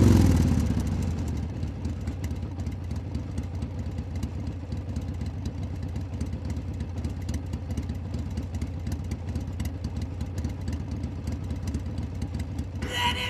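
Motorcycle engine revved once at the start, its pitch falling back, then running at a steady idle.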